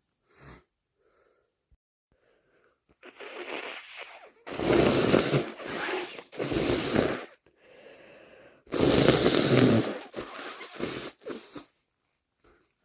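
A person with a head cold blowing a congested nose thick with mucus. Three loud, wet blows of about a second each, with a weaker one before and shorter ones after.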